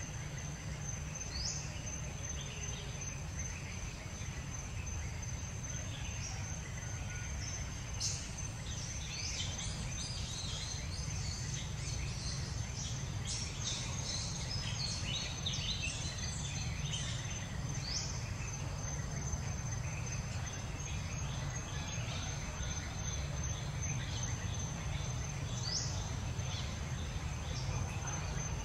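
Outdoor forest ambience: a steady high-pitched insect drone with scattered bird chirps, busiest in the middle, and a short rising call three times, over a low steady rumble.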